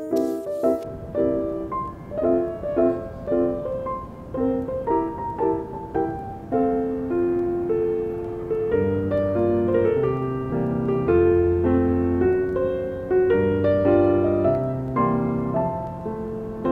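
Background piano music: a light melody of short, separate notes, with lower bass notes joining about halfway through.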